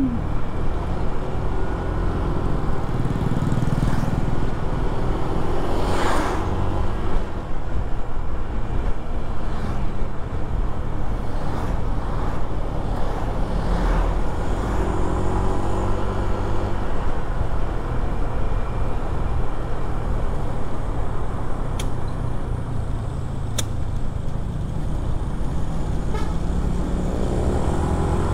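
Bus engine running steadily under load with road noise, with a few short horn toots.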